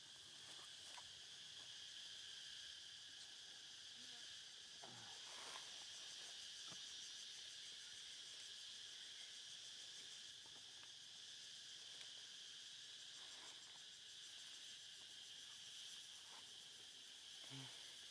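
Faint, steady insect chorus: a continuous high drone with no breaks, with a few soft clicks and rustles.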